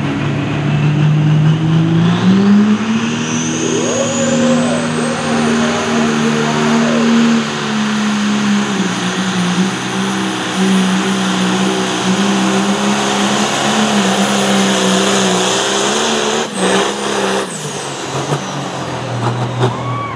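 Pro stock pulling tractor's turbocharged diesel engine at full throttle as it pulls the sled. The engine climbs in pitch over the first couple of seconds, with a high turbo whistle rising as it spools, and holds high through the pull. Near the end, a few sharp cracks come and the engine drops back as the throttle is let off.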